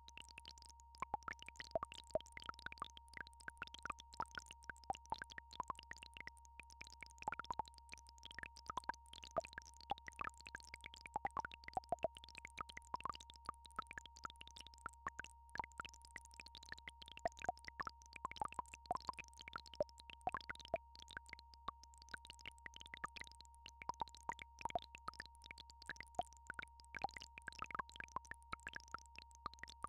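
Synthesized healing-frequency tones: a steady pure tone just under 1 kHz over a low steady hum, with a stream of short, irregular plinking blips scattered through it.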